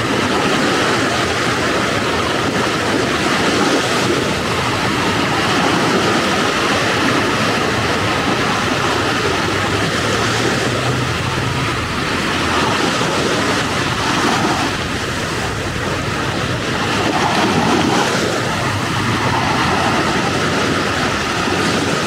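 Ocean surf breaking and washing up on a sandy beach, a continuous rush that swells and eases gently, dipping a little past the middle.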